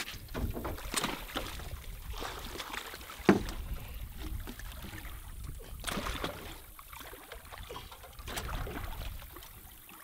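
A hooked blue catfish splashing at the surface beside a small boat as it is pulled in by hand on the line. Water sloshes unevenly, with scattered knocks and one sharp knock about three seconds in.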